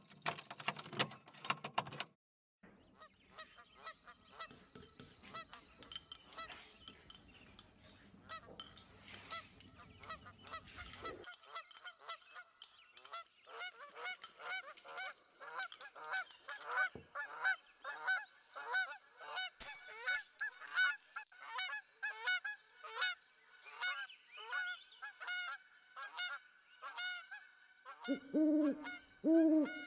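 A flock of geese honking, many short overlapping calls that grow denser and louder, with deeper, louder honks near the end. It opens with a brief clatter lasting about two seconds.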